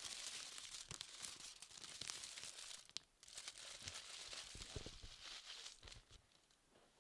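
Crinkling, crackling rustle of material being crumpled and handled, with scattered sharp clicks, a brief pause about three seconds in, and fading near the end.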